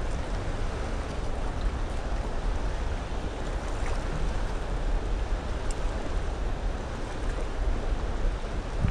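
Steady rushing of flowing river water, with a few faint small clicks.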